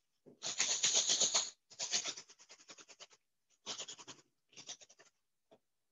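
A plastic zip-top bag of crushed cookies crinkling and rustling as it is squeezed and worked by hand, in four crackly bursts with short pauses between them.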